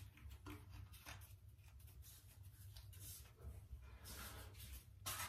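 Faint scraping and rubbing of pebble tiles being pushed and shifted by hand in wet mortar, with a louder scrape near the end.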